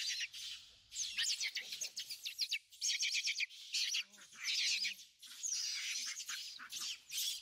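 Young macaque screaming in a rapid run of shrill, high-pitched cries while another monkey grapples with it: distress screams during a chase and scuffle.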